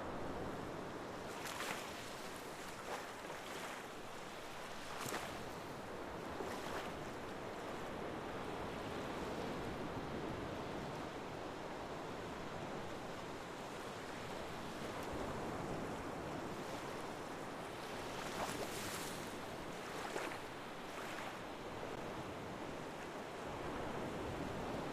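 Water washing continuously, typical of ocean waves on a shore: a steady rush with brief splashes every few seconds.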